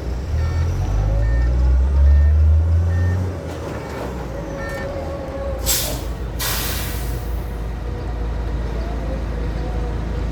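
SANY concrete mixer truck's diesel engine revving loudly for about three seconds, then dropping to a steady idle, with its reversing alarm beeping in the first half. About halfway through, the air brakes let out two hisses: a short one, then a longer one lasting about a second.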